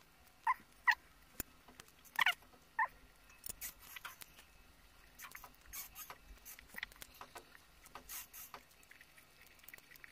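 Close-up eating sounds: a boiled egg bitten and chewed, then soft lip smacks and small wet clicks as noodles and tomato are eaten by hand. Four short high squeaks come in the first three seconds.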